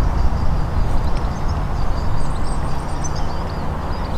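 Outdoor ambience: a steady low rumble with small birds chirping faintly above it.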